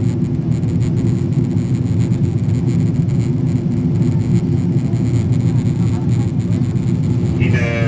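Steady cabin noise inside a Boeing 777-200ER airliner in flight: a constant low rush of engines and airflow, even in level throughout.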